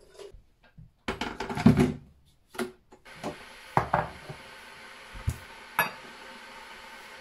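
Kitchen clatter while making coffee. An electric kettle is handled at the sink with a loud rattly stretch about a second in, then a canister lid is lifted off and set down on a wooden worktop with a few sharp clinks and knocks.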